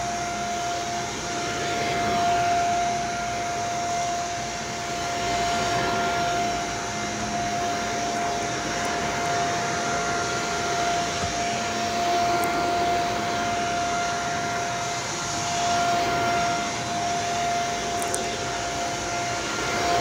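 Upright vacuum cleaner running on carpet: a steady motor whine over the rush of suction, swelling and easing slightly as it is pushed back and forth.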